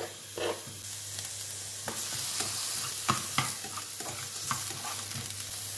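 Sliced onion sizzling in hot olive oil in a frying pan, the sizzle building over the first couple of seconds. A spatula stirs it, knocking and scraping against the pan now and then.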